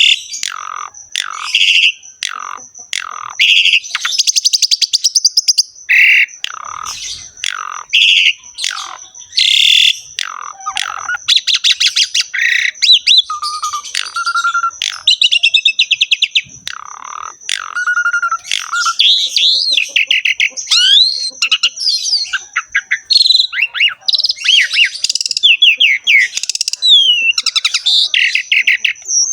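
Asian pied starling (jalak suren) singing vigorously and without pause, a dense mix of fast buzzy rattling chatter, whistled glides and short sharp notes.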